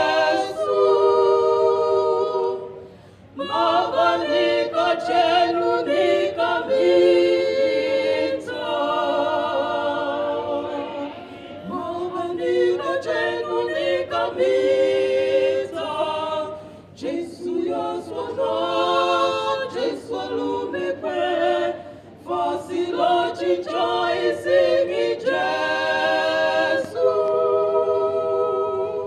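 Several women's voices singing a gospel song together, unaccompanied, amplified through hand-held microphones, in phrases with short breaks between them.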